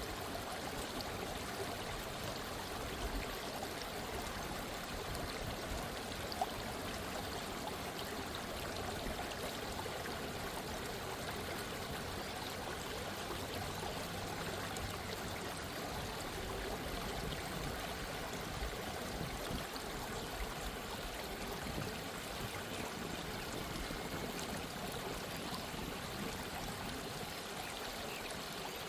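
Gentle stream of running water trickling and babbling steadily.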